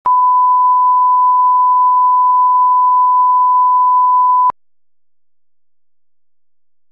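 Steady 1 kHz line-up test tone, the reference tone that goes with video colour bars for setting audio levels, cutting off suddenly about four and a half seconds in.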